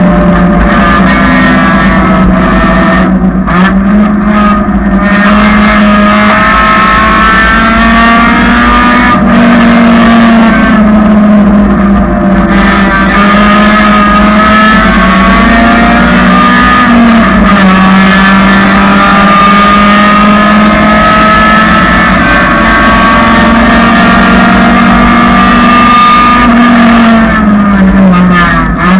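1999 Honda Civic's four-cylinder engine running hard at racing speed. Its note rises and falls repeatedly with throttle and gear changes, and it is loud throughout.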